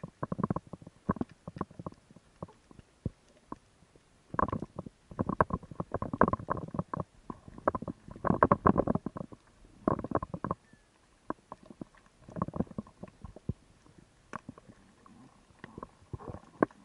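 Muffled underwater sound through a camera's waterproof housing: irregular bursts of crackling and knocking, each about a second long, with quieter gaps between them, as a freediving spearfisher moves through the water.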